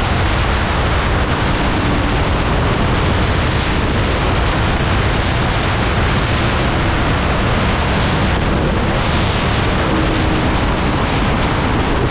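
Loud, steady wind rush and buffeting over the microphone of an Aprilia motorcycle riding at speed, with the engine's steady drone faint underneath.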